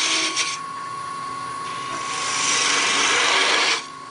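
Wood lathe running with a steady whine as a gouge cuts a cove in a spinning wooden knob: a hissing cut that stops about half a second in, then a second cut building from about two seconds in that stops shortly before the end.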